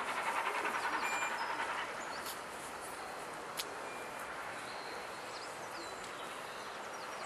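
Steam-hauled train of LNER Peppercorn A1 Pacific 60163 Tornado pulling away. The train noise drops noticeably about two seconds in and fades to a faint, steady distant sound. A few bird chirps and one sharp click are heard midway.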